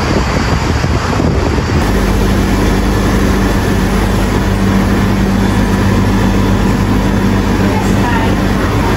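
Wind buffeting the microphone, giving way about two seconds in to a steady low machine hum with a constant pitched drone, like refrigeration or café equipment running.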